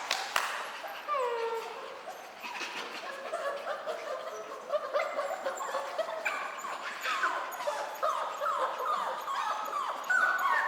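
A litter of mini Bernedoodle puppies whimpering and yipping: many short, high cries that fall in pitch, overlapping one another.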